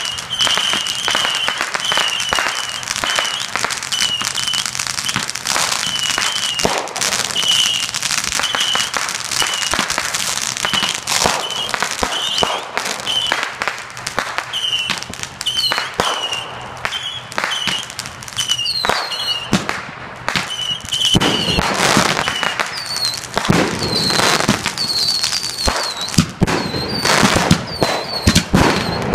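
Consumer fireworks going off in quick succession: a steady barrage of pops, bangs and crackling. Short high chirping whistles repeat through it, growing heavier near the end.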